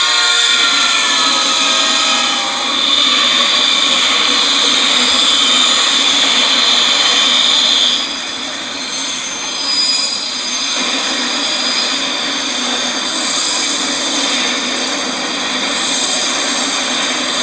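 Loud, harsh noise from a made-up locomotive-hits-truck sound effect. A train horn cuts off at the very start. A steady hiss with a high screech follows until about eight seconds in, then a duller noisy roar.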